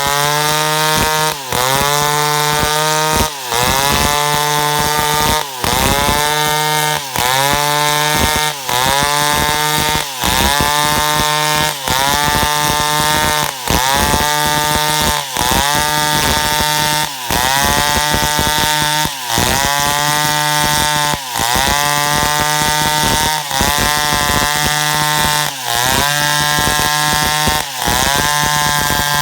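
Stihl chainsaw running at high revs while cutting eucalyptus wood. Every couple of seconds the sound briefly drops out and the pitch climbs back up, in a steady repeating rhythm.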